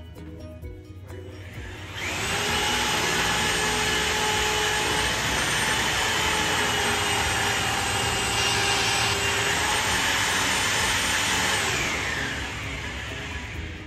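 Corded rotary hammer drill boring into a stone floor, running steadily with a whine for about ten seconds: it starts about two seconds in and dies away near the end.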